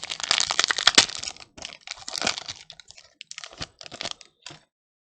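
A foil booster-pack wrapper crinkling as it is handled: dense crackling with sharp clicks for about the first two and a half seconds, then thinning to scattered crinkles and clicks.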